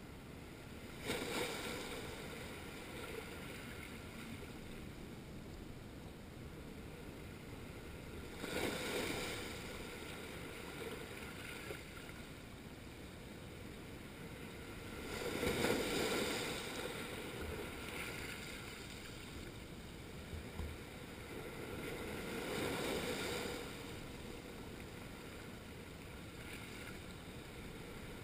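Small sea waves washing in over a flat rocky reef shoreline, four washes about seven seconds apart, with a steady hiss between them.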